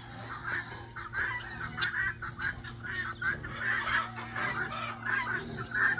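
A flock of chickens clucking, many short calls overlapping, with a steady low hum underneath.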